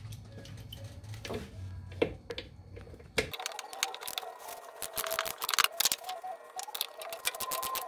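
Wrench and metal fittings clicking as the fuel filter's mounting bracket is unbolted. A few separate clicks come over a low hum, then about three seconds in the sound changes abruptly to a fast, dense run of clicks.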